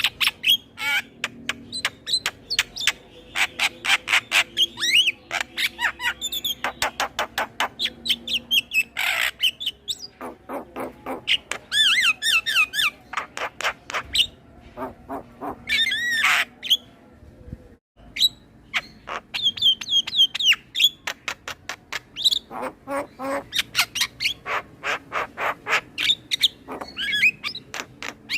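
Male Javan myna singing a long, varied song: rapid runs of sharp clicking notes mixed with whistles and harsh squawks, broken by a short pause a little past halfway.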